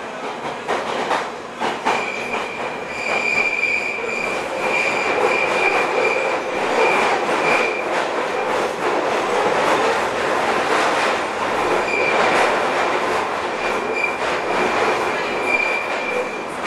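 London Underground Piccadilly line train running through a tunnel, heard from inside the carriage: a steady, loud rolling noise of wheels on rail with a few clicks over the rail joints. A high wheel squeal comes and goes twice, for several seconds each time.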